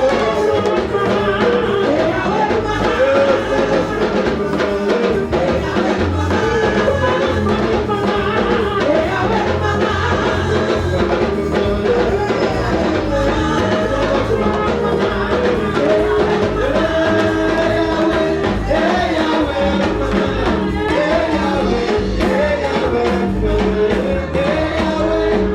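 A gospel praise song: voices singing a melody over a band with a steady drum beat.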